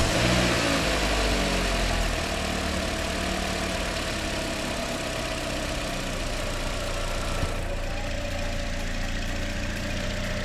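Toyota Corolla's 1.8-litre four-cylinder engine catching on its first start after being installed, running fast for about two seconds and then settling to a steady idle.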